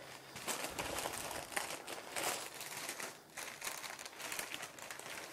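Baking paper crinkling and rustling as it is peeled away from a flat slab of butter, in irregular crackles with a brief lull about three seconds in.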